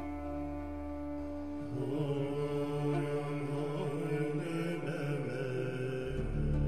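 Background music built on a steady drone with held, chant-like tones; the low drone drops out and a fuller passage comes in about two seconds in, and the drone returns near the end.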